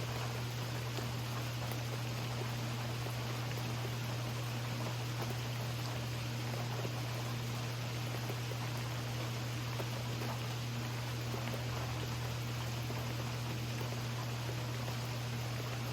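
Steady rain falling, an even hiss with fine scattered patter and no thunder, over a constant low hum.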